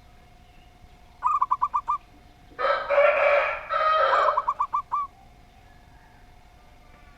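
Dove cooing in quick runs of short, clipped notes, about six to a run, twice. Between the runs comes a louder, harsh, drawn-out two-part call lasting about two seconds, the loudest sound here.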